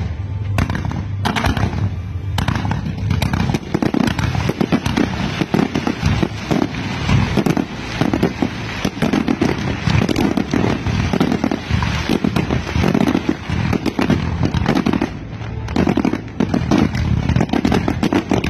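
A fireworks display: many shells bursting in rapid succession, a dense run of bangs and crackling with hardly a gap, dipping briefly about three-quarters of the way through.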